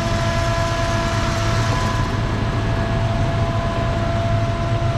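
Turbocharged 302 V8 idling steadily: an even low rumble with a faint, steady high whine over it.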